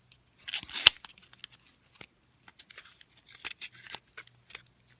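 Small cardboard lipstick box being handled and opened: a short rustle ending in a sharp click about a second in, then scattered small clicks and rustles of packaging.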